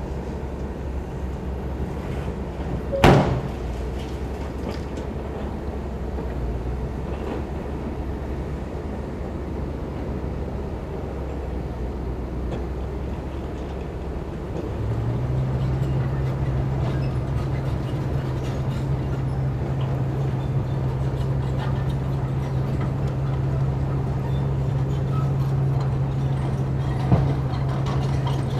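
Heavy construction machine's diesel engine running steadily, with one loud bang about three seconds in. About halfway through, the engine note steps up to a stronger, steady low hum, and a smaller knock comes near the end.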